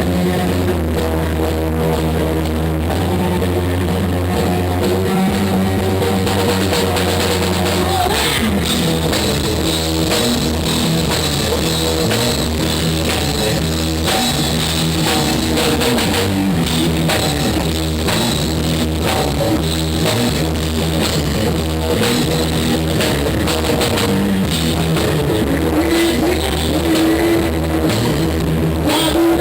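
Rock band playing: held chords over a steady bass for several seconds, then the drum kit comes in at about eight seconds and the band plays on in a driving beat.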